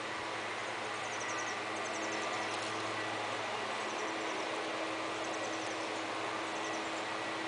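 Steady background hiss with a low hum, and faint high chirps, each a quick run of ticks, recurring every second or so.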